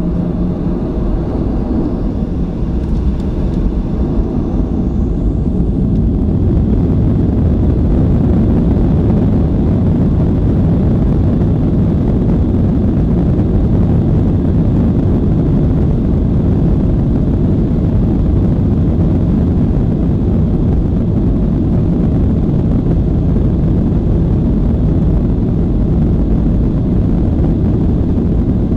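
Boeing 737-800's CFM56-7B jet engines spooling up to takeoff thrust and the takeoff roll, heard from inside the cabin: a faint rising whine over the first few seconds, with a deep rumble that grows louder over the first several seconds, then holds steady and loud.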